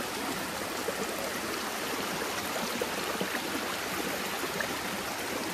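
Stream water flowing steadily over stones, a constant rushing babble.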